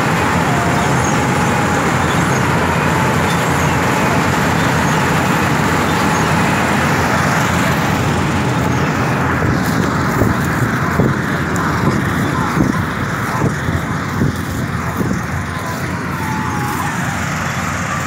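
Combine harvesters' engines running steadily, heard through heavy rumbling noise on the microphone, with handling knocks from about ten seconds in as the phone is moved.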